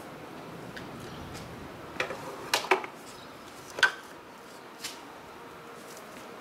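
Light clicks and clinks of curtain clips on a bamboo pole as fabric curtains are hung and straightened, sharpest about two, three and four seconds in.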